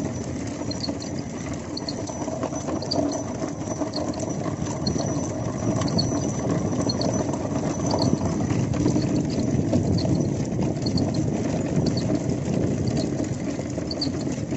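Racing bullock cart rolling at a trot on a paved road: a steady rumble and rattle of the cart, with hoofbeats and short high jingles recurring about once a second.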